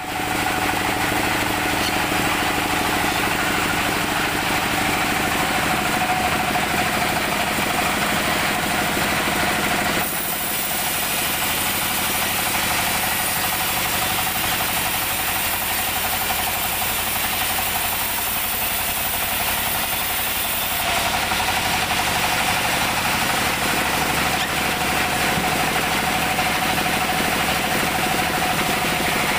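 Band sawmill running steadily with no cut under way, its stationary engine driving the blade as it spins free.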